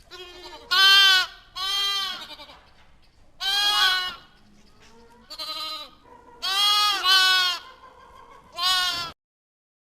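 A sheep or goat bleating: about seven loud, quavering bleats, each about half a second long, spaced irregularly with the last near the end.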